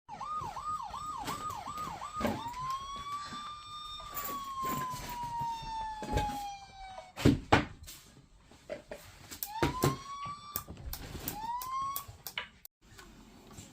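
Playmobil toy police car's electronic siren. It starts with a fast warble of about three cycles a second, changes to one long slow wail that rises and then falls away, and later gives two short rising starts that cut off. Sharp knocks come in between, the loudest about seven seconds in.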